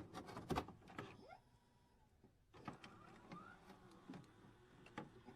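Faint scattered clicks and light knocks, with a couple of short, faint squeaks.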